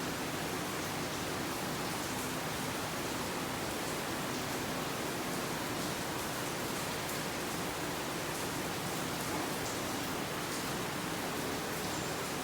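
Steady, even hiss of background noise with no distinct event, only a few faint light ticks.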